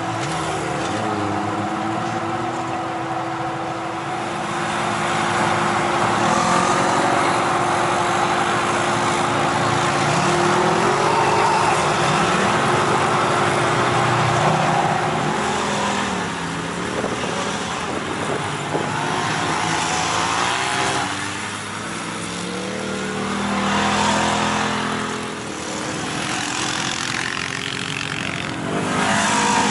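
Side-by-side off-road vehicle engines running along a dirt trail, the engine note rising and falling with the throttle, with several louder swells as machines pass close by.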